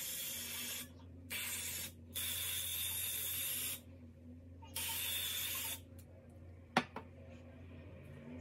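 Got2b Glued Blasting Freeze Spray, an aerosol hairspray can, spraying onto hair in four hissing bursts, the longest about a second and a half. A single sharp click follows about seven seconds in.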